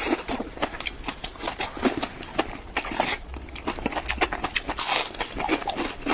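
Close-miked mouth sounds of enoki mushrooms being eaten fast: rapid wet chewing and smacking, with many quick irregular clicks.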